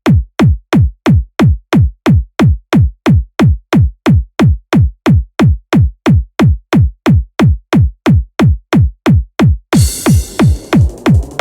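Makina track intro: a lone drum-machine kick drum pounding at a fast, even tempo of about three beats a second. Near the end a cymbal crash and a rising synth sweep come in over the kicks as the full track starts.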